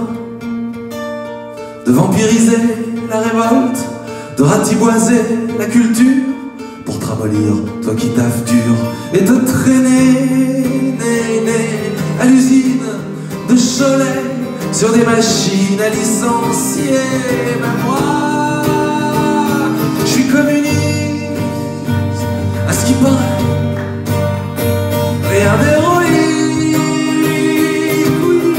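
A man singing over his own strummed acoustic guitar, a live song performance.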